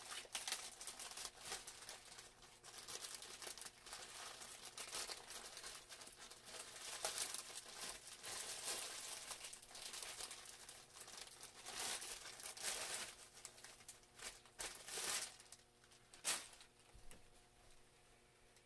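Thin clear plastic bag crinkling and rustling in irregular bursts as it is handled with a cap inside, with one sharp crackle near the end, after which the rustling dies down.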